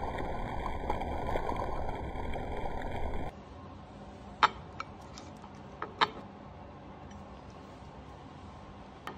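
Butter sizzling and crackling in a cast iron skillet with asparagus, garlic and rosemary; it cuts off about three seconds in. Then a quiet stretch with two sharp clicks as a seared steak is set down on a ceramic plate.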